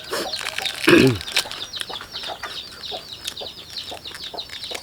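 Chickens peeping and clucking on and off in the background, with close crunchy chewing of raw vegetables and chilies. A short low 'mm' falls in pitch about a second in.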